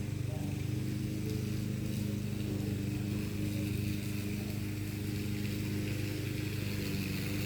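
A motor vehicle's engine idling steadily, an even low hum that holds the same pitch throughout.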